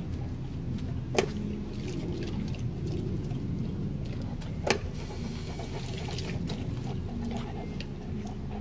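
Steady low motor-like rumble in the background, with two sharp clicks about three and a half seconds apart.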